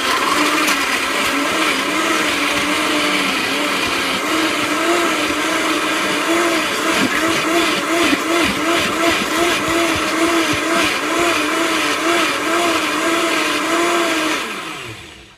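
Countertop blender running at high speed, puréeing raw tomatoes, onion, jalapeño, garlic, cilantro and chayote into gazpacho. Its motor pitch wobbles about twice a second as the contents churn, and near the end it switches off and spins down.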